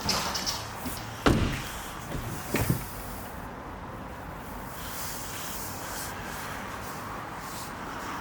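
Two solid thumps about a second and a half apart, a car door being shut, followed by a steady hiss.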